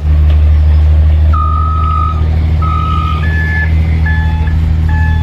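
Truck engine running steadily with a low rumble while a reversing alarm sounds: two longer beeps, then regular beeps a little more than one a second.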